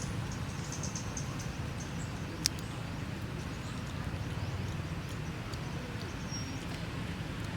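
Outdoor background: a steady low rumble with faint high chirps, and a single sharp click about two and a half seconds in.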